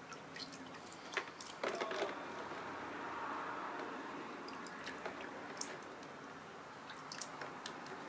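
Light clicks and taps of small metal parts being handled as a Keihin VB carburettor's float and needle are fitted. A steady faint rushing noise comes in about two and a half seconds in.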